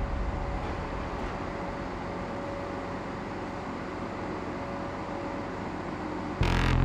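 Railway station ambience: a steady rumbling hum from a passenger train at the platform, with a faint held tone through it. Near the end a much louder low rumble cuts in suddenly.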